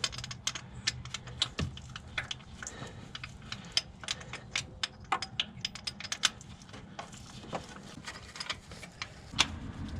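Irregular metallic clicks and taps of hand tools, a socket and wrench working at a spark plug deep in a truck's engine bay.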